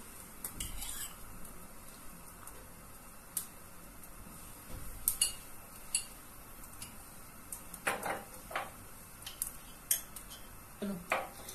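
Scattered light clinks and knocks of metal kitchen utensils against cookware, a few sharp taps spread out over several seconds, with a low steady kitchen hum under them.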